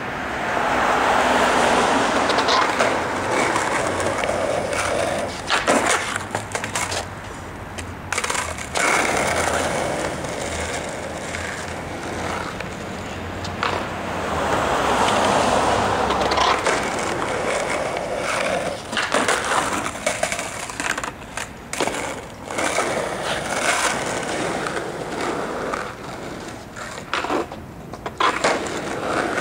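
Skateboard wheels rolling on street pavement, the rolling noise swelling and fading as the board passes several times, with sharp clacks and slaps of the board hitting the ground in between.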